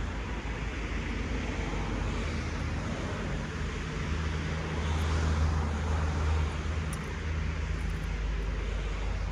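Low, steady engine rumble of a passing motor vehicle, growing louder about midway and easing off again near the end.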